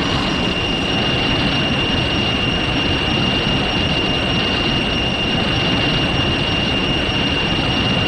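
Sound-designed giant-monster roar for Cthulhu: a long, loud, harsh noise held steady, with a constant high-pitched whine running through it.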